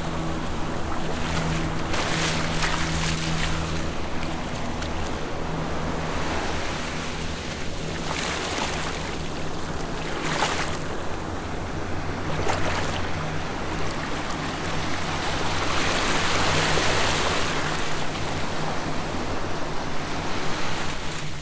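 Eerie ambient horror score: a low sustained drone under washes of noise like surf and wind that swell up several times, most broadly in the second half.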